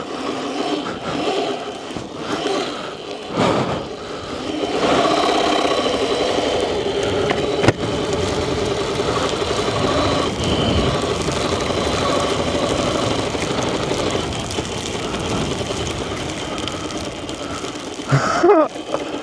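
Sur Ron electric dirt bike riding through snow: the electric motor and drivetrain whine, wavering slightly with speed, over a steady rush of tyre and wind noise. The whine grows louder about five seconds in and holds until near the end. One sharp knock sounds partway through.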